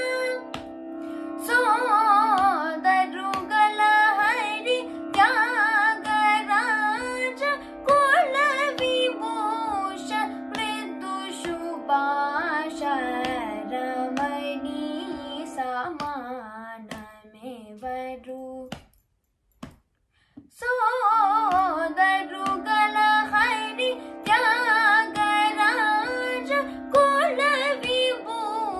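A girl singing a Carnatic song in raga Kharaharapriya, her voice sliding and oscillating through ornamented notes over a steady drone. The sound cuts out for about two seconds past the middle, then the singing and drone resume.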